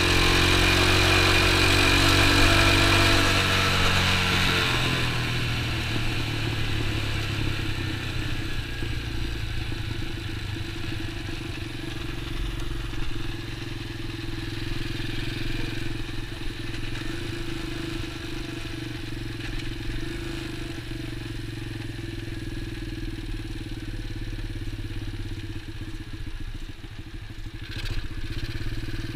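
X19 super pocket bike engine running under way, pulling at higher revs for the first few seconds, then easing off and holding a steady, lower cruising note.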